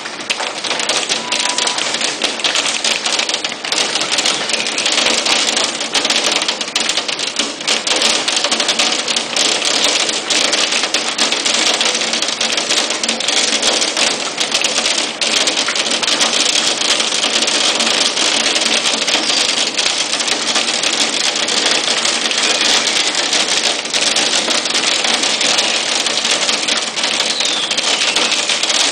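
Hail and heavy rain pelting a paved driveway and a parked car: a dense, steady clatter of hailstones. A faint falling whistle, imitating an incoming shell, sounds near the end.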